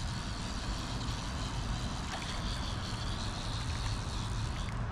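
Steady low rumble and hiss of outdoor background noise, with a faint high, even drone above it.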